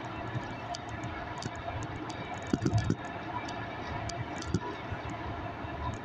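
Steady rumble and rattle of a moving vehicle heard from inside, with small ticks throughout and a short cluster of louder knocks about two and a half seconds in.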